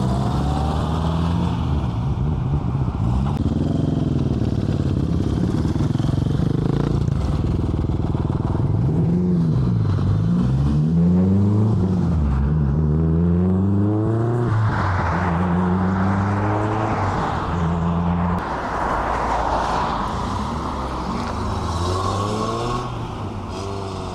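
Several cars driving away one after another, starting with a classic MG roadster pulling out. Their engines rev up through the gears, the pitch climbing and dropping back at each change, with a stretch of tyre noise as cars pass in the second half.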